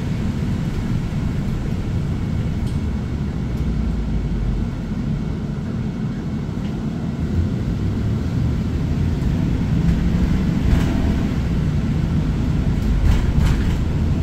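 Cabin noise aboard a Chevrolet 4500 ARBOC Spirit of Freedom minibus under way: a steady, low engine and road rumble, with a few short clicks and rattles in the second half.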